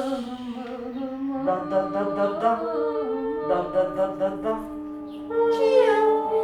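Layered voices singing and humming long wordless notes a cappella, several pitches held at once and overlapping. Near the end, one voice slides down in pitch.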